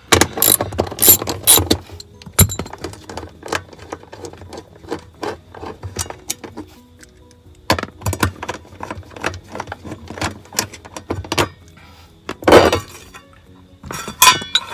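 Hand ratchet clicking in short quick runs as the bolts of a fuel-pump access cover are undone, with a louder clatter near the end.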